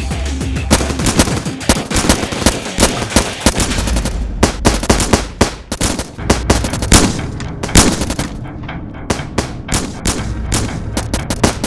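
Rapid gunfire sounds, many sharp shots in quick succession like machine-gun bursts, growing sparser near the end.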